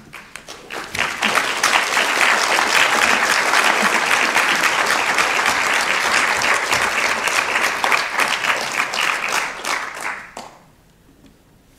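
Audience applauding: the clapping builds up within the first second, holds steady, then dies away about ten and a half seconds in.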